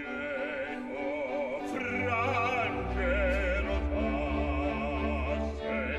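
Operatic bass singing sustained notes with a wide vibrato over accompaniment, with a deep low accompaniment coming in about three seconds in.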